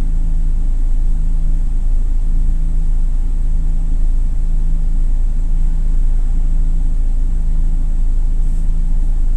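Toyota Coaster minibus's LPG engine running steadily, heard from inside the cabin as a low rumble with a constant hum.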